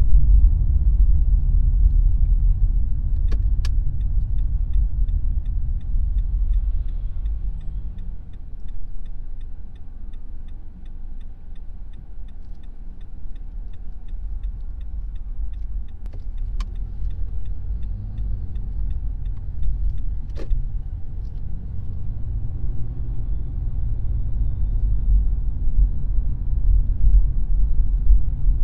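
Car driving on town streets: a steady low road and engine rumble that eases off in the middle and builds again near the end. For a stretch there is a faint even ticking of about three ticks a second, and a few sharp clicks.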